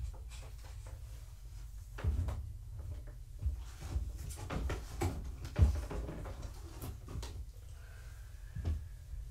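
Irregular rustling and crinkling with small knocks and clicks as a disposable pee pad is handled and laid down on the floor, busiest in the middle.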